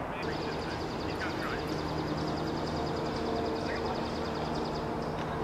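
Open-air ambience: a high, fast-pulsing trill holds for about five seconds over a low steady hum, with a few short chirps.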